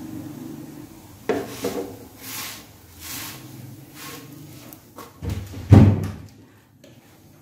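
A hand turning a stuffed paratha on a hot iron tawa: a few short scraping swishes of dough on the iron, then a loud low thump about six seconds in.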